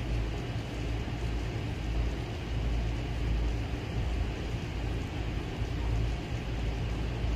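Steady outdoor background noise: a low rumble that rises and falls under an even hiss, with no distinct clicks or knocks.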